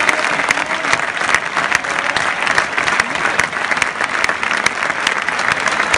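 Large stadium crowd applauding in a sustained ovation: dense, steady clapping from thousands of spectators.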